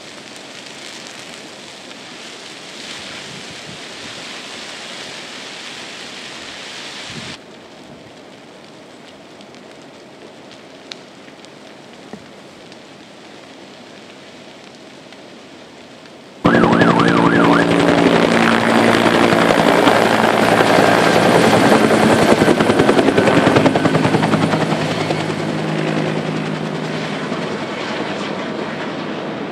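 Helicopter flying close, its rotor beating loudly. It cuts in suddenly about halfway through, after a stretch of quieter steady hiss.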